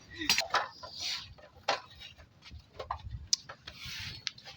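Scattered clicks and light knocks of hard objects being handled, with a short rustle near the end.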